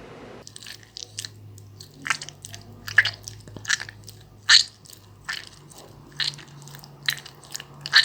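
Foley guts effect: a seedy fruit being mashed on a plate, giving about a dozen short, irregular wet crunching sounds that imitate viscera.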